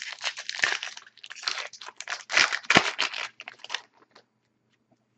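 Crinkling and rustling of a trading-card pack's foil wrapper as it is handled and opened. It comes as a run of short, crackly bursts that stop about four seconds in.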